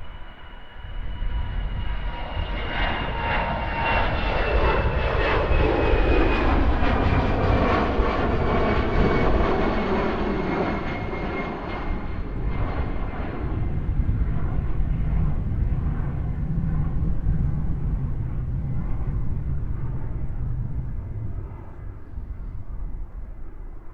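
Jet airliner passing by: a high engine whine that slides slightly down in pitch as it goes past, swelling into loud engine noise for several seconds, then a low rumble that fades near the end.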